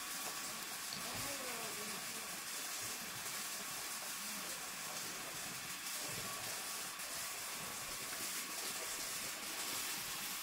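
Steady, even hiss with faint low wavering sounds beneath it.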